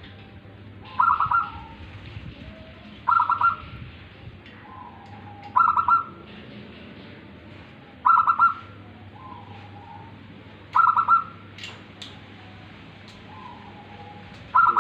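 Zebra dove (perkutut) in song: a quick burst of staccato coos followed by a softer, lower note, repeated six times about every two and a half seconds.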